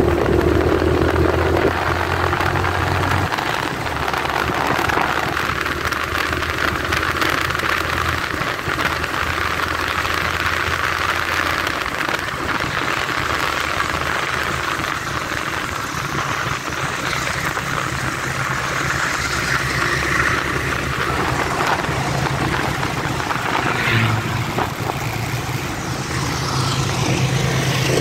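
Motorcycle riding along a wet road: a steady engine note under wind and road noise, the engine pitch shifting a few times with speed.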